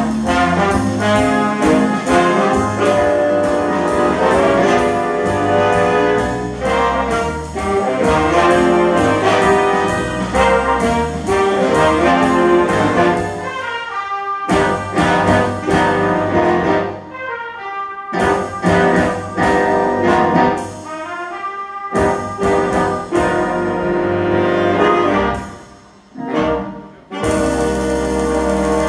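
Big band playing swing jazz live: brass and saxophone sections over drums and piano. In the second half the band breaks off into brief pauses several times, then holds a long full chord near the end.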